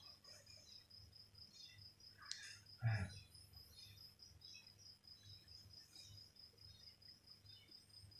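Faint, steady high-pitched chirping of a night insect, repeating as an even pulse, with one brief louder sound about three seconds in.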